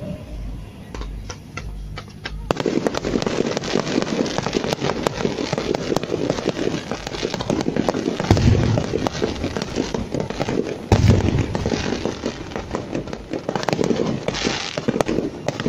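Aerial fireworks: a few sharp cracks, then from about two and a half seconds in a dense, continuous crackling of bursting shells and stars, with deep booms of shell bursts about eight and a half and eleven seconds in.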